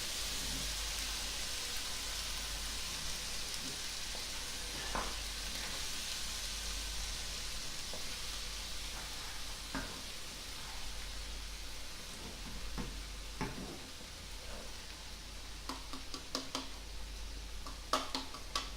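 Sausages sizzling steadily in an oiled pan with tomatoes and butter beans just added, with occasional knocks and clicks, several close together near the end.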